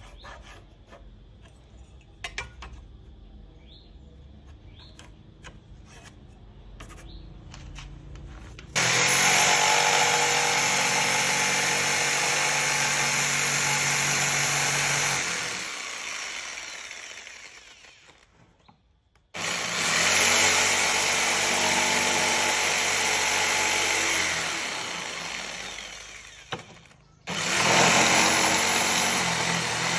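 Electric jigsaw cutting a wooden board, running loud and steady in three long runs that start abruptly and fade down before each break. Before it, several seconds of quiet with a few light ticks and taps of a pencil and steel square marking out the cut.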